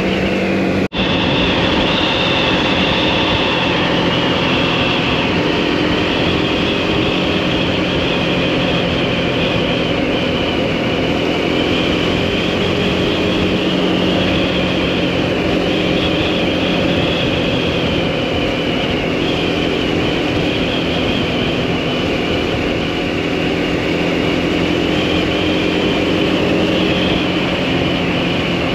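Motorcycle engine running steadily at cruising speed, with wind and road noise over the helmet or bike camera. There is a brief dropout about a second in.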